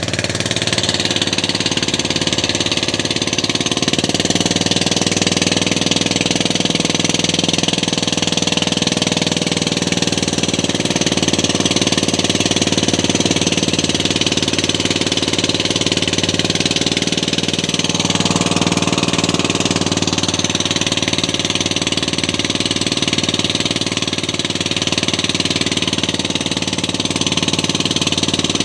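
Outrigger fishing boat's engine running steadily, a constant layered hum, with an even hiss above it.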